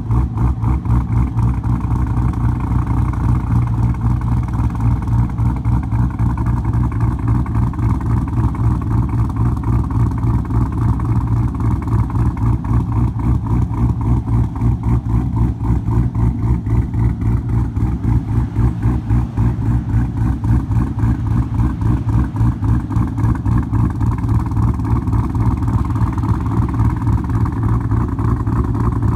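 C6 Corvette V8 idling through Kooks long-tube headers and a Billy Boat Bullet exhaust out of quad tips. The idle holds steady, with a regular pulsing lope from the custom Comp Cams camshaft.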